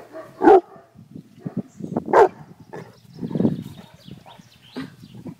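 A dog barking: two loud single barks, about half a second and about two seconds in, with softer low sounds after them.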